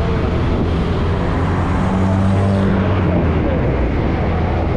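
Motor vehicle engines running steadily as in street traffic, with one engine's hum growing louder about two seconds in and dropping away by three seconds.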